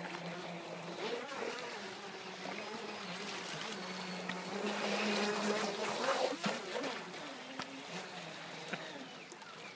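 Small electric motor of a LiteHawk Challenger radio-control speed boat whining as it runs on the water, its pitch rising and falling with the throttle. There is a louder, noisier stretch about five to six seconds in.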